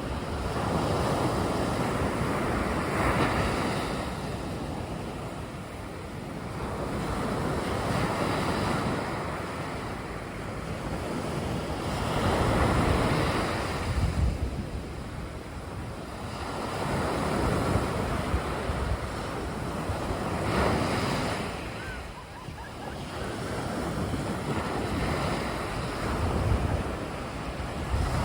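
Sea surf: waves breaking and washing up the beach, the sound swelling and falling away every few seconds.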